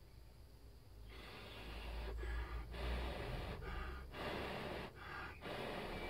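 A person blowing in a series of short puffs on a freshly soldered connector joint to cool the molten solder, starting about a second in.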